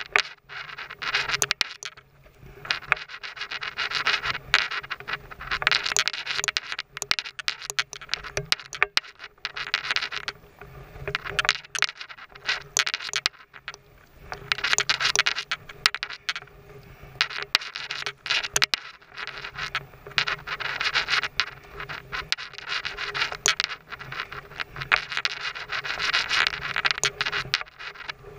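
Kayak paddling: swells of water splashing and dripping as the paddle blades dip, repeating every two to three seconds, with small knocks and clicks throughout.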